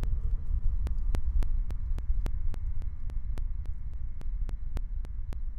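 Low steady rumble of the Falcon 9 first stage's engines late in their burn, crossed by a quick regular train of sharp clicks, about five a second.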